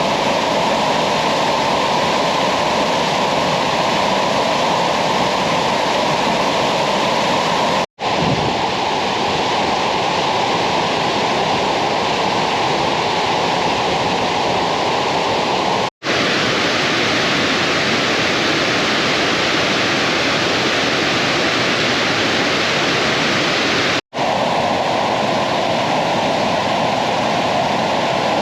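Waterfall: a loud, steady rush of falling water, cut off for a split second three times, at each splice between takes.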